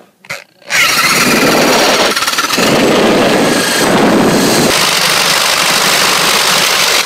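Electric drill with a spade bit boring through a wooden board: the motor starts about a second in and runs at full speed, with a rougher, lower grinding sound for a couple of seconds in the middle as the bit cuts into the wood.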